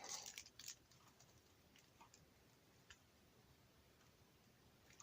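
Near silence, with a few faint clicks in the first second and two single faint ticks later, as of small plastic items being handled.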